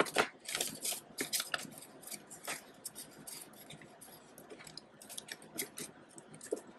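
Paper banknotes and a cash envelope being handled: an irregular run of crisp crackles and rustles as the bills are tucked into the envelope in a ring binder, busiest in the first second and again about five seconds in.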